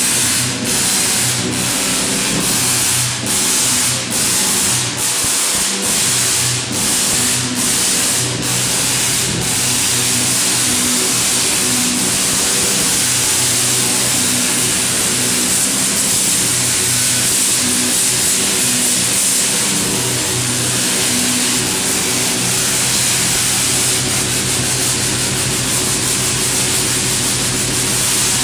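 Large Tesla coil firing: a loud, harsh buzzing crackle of electric sparks. For the first nine seconds or so it cuts out briefly about once a second, then runs without a break.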